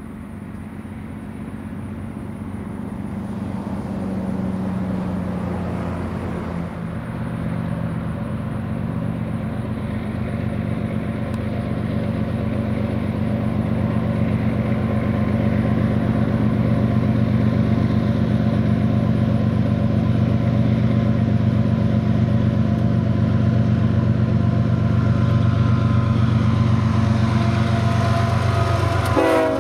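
Diesel locomotive engines of a freight train drawing near, their low drone growing louder over the first dozen seconds or so, then holding steady and loud.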